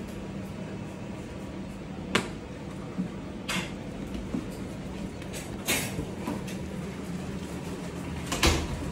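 A steady low hum with four sudden knocks and scrapes about a second or two apart; the loudest, near the end, has a low thud.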